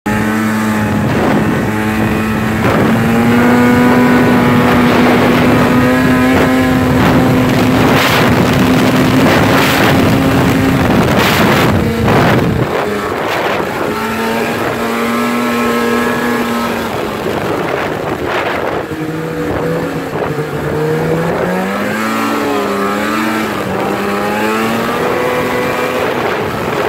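Snowmobile engine running under way on a trail. It holds a steady pitch for several seconds, drops off about halfway through, then rises and falls with the throttle. A few short bursts of rushing noise break in along the way.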